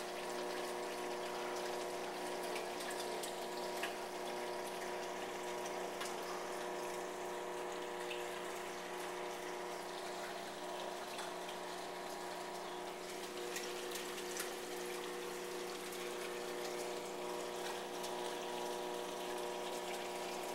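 Reef aquarium's water pump running: a steady electric hum over an even wash of moving water, with a few faint ticks.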